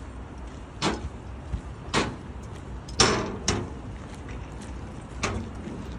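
Footsteps along a walkway, one sharp step roughly every second, the loudest about three seconds in, over a low steady rumble.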